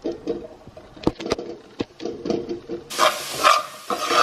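Chopped onion, scallion and scotch bonnet pepper being scraped off a cutting board into a pot, with light knocks and taps; about three seconds in, the vegetables sizzle in the hot oil.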